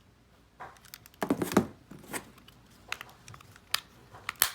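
Plastic wireless DVD headphones being handled after a battery change: a cluster of rustles and clicks about a second in, then single sharp plastic clicks every second or so, the loudest near the end.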